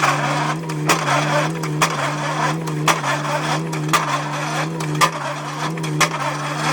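Excavator-mounted pile hammer driving a pile: sharp strikes land roughly once a second over the steady drone of the excavator's engine.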